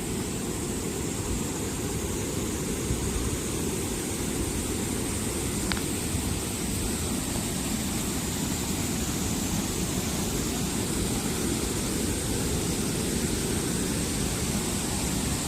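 Flowing stream water rushing steadily, a deep, even sound.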